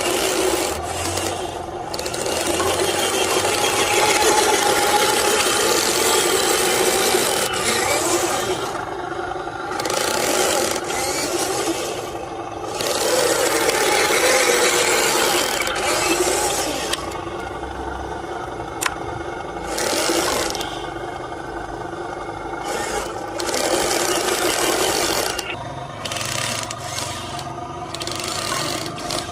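Radio-controlled model truck driving over rough ground in stops and starts: small motor and gears with the tyres scraping over dirt and debris.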